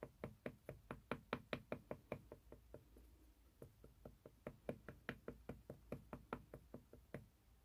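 Wood-mounted rubber stamp tapped again and again on an ink pad to load it with ink: quick, even wooden taps, about five a second, with a brief pause about three seconds in, stopping shortly before the end.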